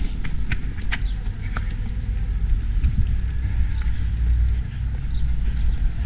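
Wind rumbling on the microphone of a handheld camera carried by a moving runner, with a few sharp footfalls on asphalt in the first second or so.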